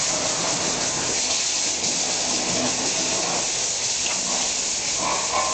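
Power sander running steadily against the steel bed side of a 1959 Chevrolet pickup, an even hissing rasp, as the panel is sanded down for epoxy primer.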